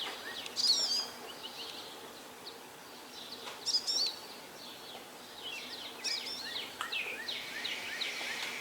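Songbirds singing, with short phrases of quick sliding chirps about a second in, again near the middle, and a longer run of chirps later on, over faint outdoor background noise.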